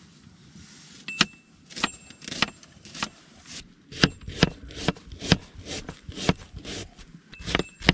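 Serrated kitchen knife slicing a red onion on a wooden chopping board: sharp knocks of the blade striking the board, slow at first, then about three a second from about four seconds in. A few strokes carry a short metallic ring, which a speaker calls 'टन टन' and blames on a steel kada bracelet on the cutter's wrist.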